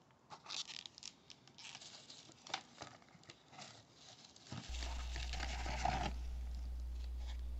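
Plastic blister-pack cards and paper separators crinkling, rustling and clicking as carded die-cast model cars are handled and pulled from a cardboard case. A steady low hum starts suddenly about halfway through.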